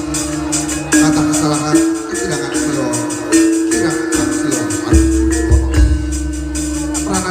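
Javanese jaran kepang (jaranan) ensemble music played loud over a sound system: a held, stepping melody line over rhythmic percussion, with a deep low boom about five seconds in.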